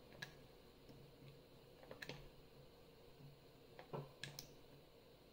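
A few faint, scattered clicks of a lock pick and tension wrench working the pins inside a five-pin Lockwood Euro cylinder, the loudest about four seconds in. The pick is probing the back pins, four and five, for feedback.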